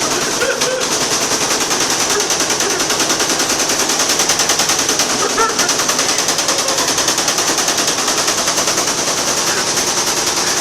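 LG washing machine on its spin cycle, jumping and shaking so that it makes a fast, steady rattle of knocks. This is the sign of a badly unbalanced machine, which the owner puts down to it having worn out and to the instructions not being read.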